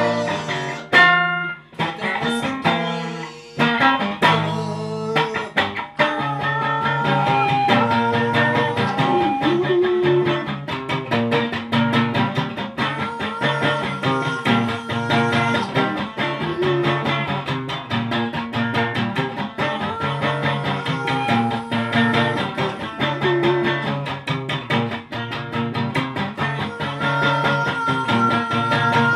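Amplified guitar strummed in a steady, repeating pattern over a low note, with a man singing into the microphone at times.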